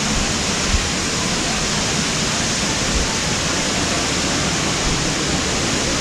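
A waterfall's water rushing, loud and steady.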